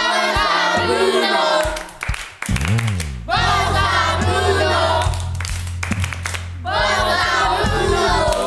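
Music with a group of voices singing in phrases, with sharp clap-like hits in the pauses between phrases.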